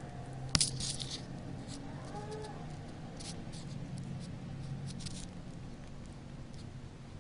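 Small splashes and drips of bath water as a hedgehog paddles in a bubble bath: scattered short splashes, the loudest a sharp click about half a second in, over a low steady hum.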